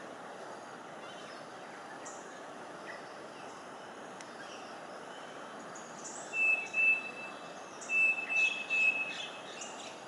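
Racket-tailed drongo calling: two loud bursts of calls, about six and eight seconds in, each a whistled note held at one pitch with sharper notes above it, over steady background noise.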